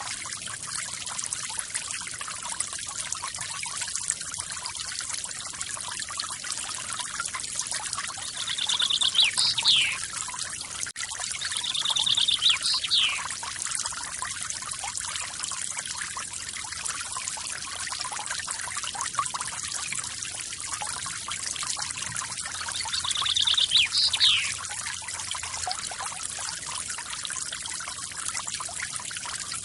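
Water from a forest waterfall pouring and trickling steadily. Three times a songbird calls over it, each call a short rapid trill ending in a quick downward-sweeping note.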